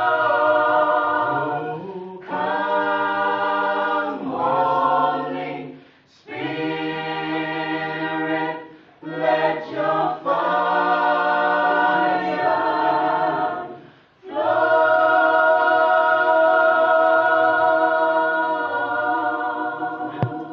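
Mixed-voice a cappella gospel ensemble of men and women singing close harmony in sustained chords, phrase by phrase with short breaths between. The last phrase is one long held chord that fades near the end.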